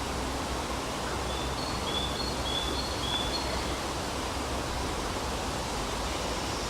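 Steady outdoor rushing noise. About a second in, a small bird gives a quick run of short, high chirps alternating between two pitches, lasting about two seconds.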